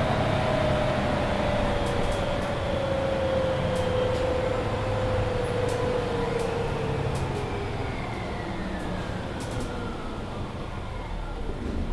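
Mercedes-Benz Citaro C2 Hybrid city bus under way, its drivetrain whine gliding steadily down in pitch over several seconds as the running noise eases, typical of the bus slowing. A steady rumble and a few faint light rattles run underneath.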